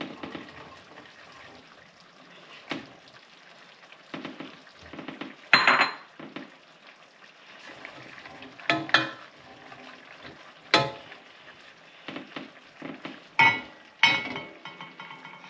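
Long beans stirred into a simmering pot of vegetable stew with a spoon: a faint steady simmer under irregular knocks and clinks of the spoon and dishes against the pot. The loudest knock, about five and a half seconds in, rings briefly, and a quick run of clatters comes near the end.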